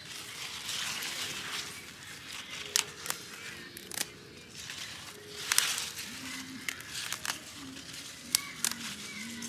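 Radish leaves rustling and crackling as hands grasp and bunch the leafy top of a white radish, with several sharp clicks through the middle.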